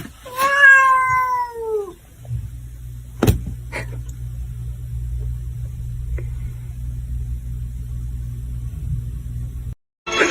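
A domestic cat gives one long, drawn-out meow that falls in pitch, lasting about a second and a half. A couple of sharp knocks follow, then a steady low rumble runs until it cuts off near the end.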